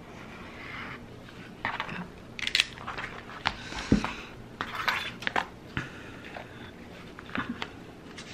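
Utility knife dragged through a thin cork sheet along a steel ruler on a cutting mat: a run of short, irregular scraping strokes and clicks, with one dull knock about four seconds in as the ruler and cork are shifted.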